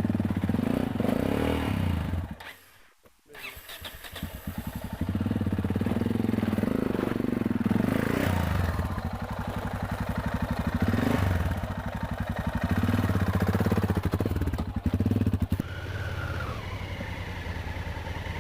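Motorcycle engine running under way off-road, its revs rising and falling as the rider works the throttle. It drops out briefly about three seconds in, then carries on.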